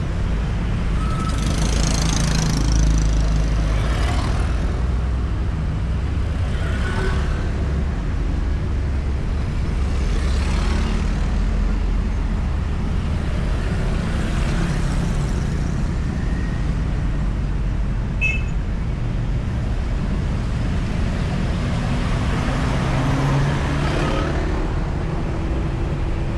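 Continuous highway traffic: a steady low rumble of engines and tyres on asphalt, with vehicles passing one after another every few seconds, each a short swell of noise.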